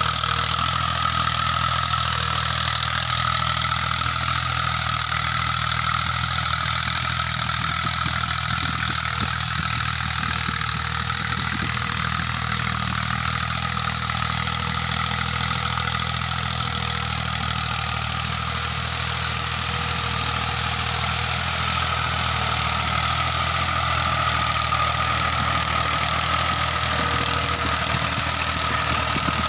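Massey Ferguson 240 tractor's three-cylinder diesel engine running steadily under load as it pulls a tine cultivator through ploughed soil.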